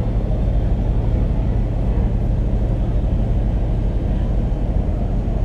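Ferry boat's engine running under way, a steady low drone and rumble with no change in pitch.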